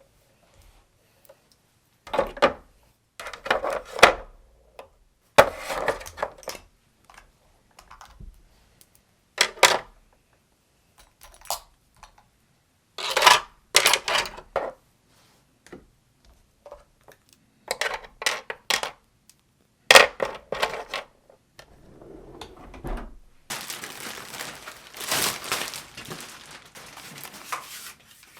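Makeup products clinking and clattering as they are set into a drawer insert, in short separate bursts with pauses between, and a longer, denser stretch of rattling and rustling near the end.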